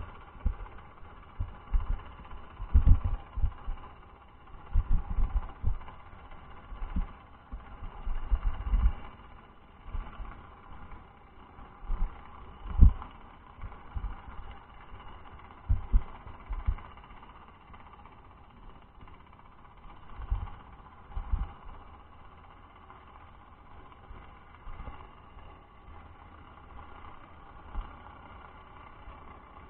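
Muffled underwater sound through a camera's waterproof housing: irregular low thumps every second or few, thinning out after about halfway, over a steady faint hum.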